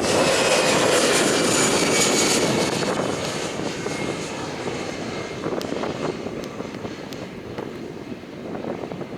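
Jet airliner passing close by, its engine noise loudest in the first few seconds with a high whine that slides down in pitch, then fading away.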